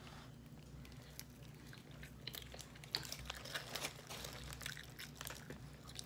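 Close-up chewing of a soft pita sandwich: a bite, then wet, irregular mouth clicks, with light crackles from the aluminum foil wrapper, over a faint steady low hum.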